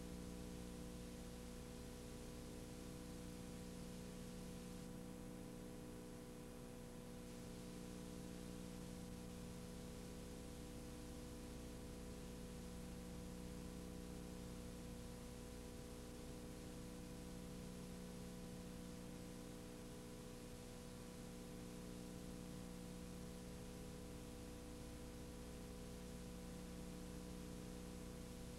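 Steady hiss with a low electrical hum, the noise of a blank, unrecorded stretch of videotape.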